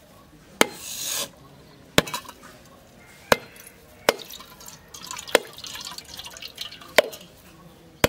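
A knife blade knocking sharply against a husked coconut, about seven strikes spaced a second or so apart, cracking the shell open. Between the strikes, coconut water splashes and trickles into a steel bowl.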